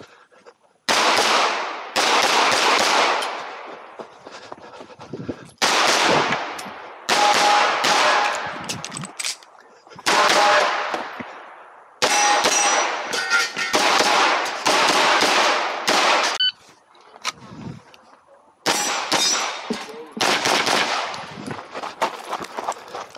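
SIG P320 X-Compact pistol with an Icarus Precision frame and ported slide firing rapid strings of shots, several quick shots per string, with short pauses between strings. Each string leaves a long, fading echo.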